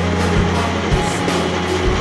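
Rock-style background music: a steady bass line changing note every half second or so, with drum and cymbal hits.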